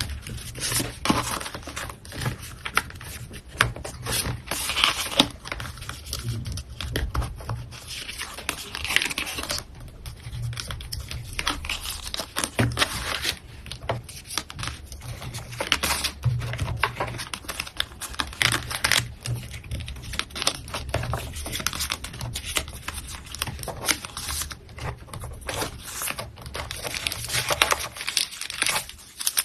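Hand-packing an order: plastic packaging crinkling and rustling, with tearing sounds and scattered small clicks and taps.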